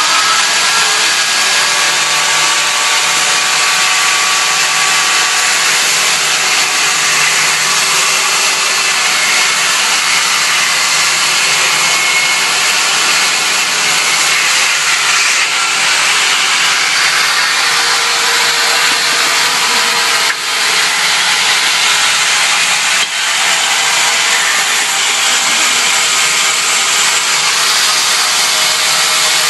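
Vertical band saw resawing wood fed by a power feeder: a loud, steady cutting noise, with two brief dips about twenty and twenty-three seconds in.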